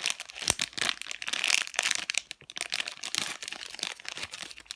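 Plastic packaging of a squishy toy crinkling and crackling as it is handled, with dense irregular crackles throughout.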